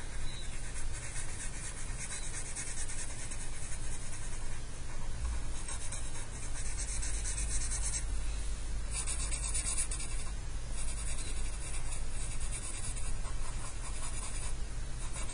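Black felt-tip marker scratching across paper as a dark background area is shaded in. The scratching comes in stretches of a few seconds with short breaks between them.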